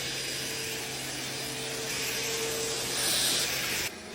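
eufy Omni S1 Pro robot vacuum running after starting a cleaning cycle: a steady hissing whir with a low hum and a faint whine, which cuts off suddenly near the end.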